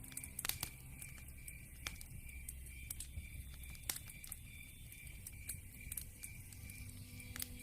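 Wood fire crackling in a fireplace: irregular sharp pops and snaps over a low, steady rumble of burning.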